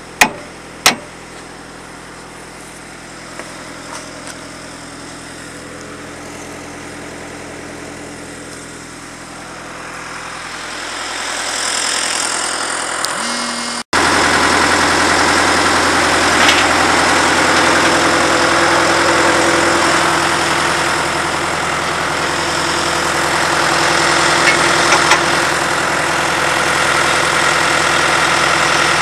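Engine of a cable tool drill rig running steadily. A hammer strikes metal once or twice near the start, and after an abrupt cut about halfway the engine is louder.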